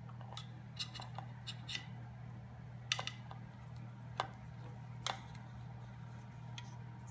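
Scattered light clicks and taps of handwork as a power cord is routed along the underside of a sewing machine table, over a steady low hum.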